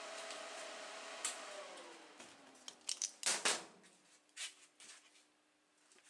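A small motor hums steadily, then winds down with a falling pitch about two seconds in. It is followed by clicks and clatter of metal tools and parts being handled on a steel bench, loudest about three seconds in.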